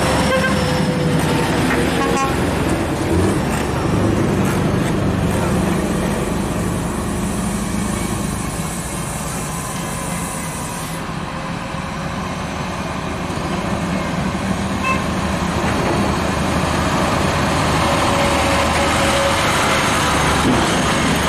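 Scania R580 truck's V8 diesel engine running steadily under way, with road noise; the level eases slightly around the middle and builds again.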